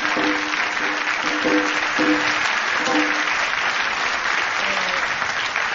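Audience applause over the tail of rakugo entrance music (debayashi), with short plucked shamisen notes that stop about three seconds in while the clapping carries on.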